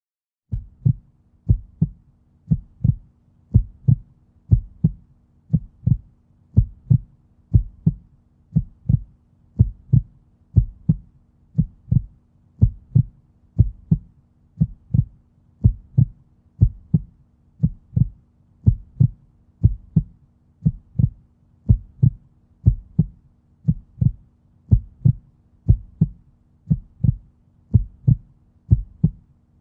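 Heartbeat sound effect: a steady, regular lub-dub of low double thumps, about one beat a second, starting about half a second in.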